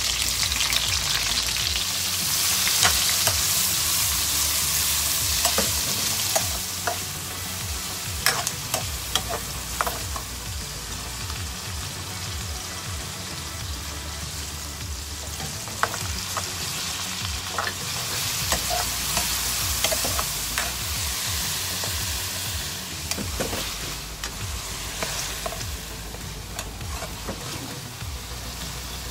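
Sliced onions sizzling in hot oil in a frying pan, stirred with a spatula that clicks and scrapes against the pan. The sizzle jumps up as the onions go in, eases off, and swells again about two thirds of the way through.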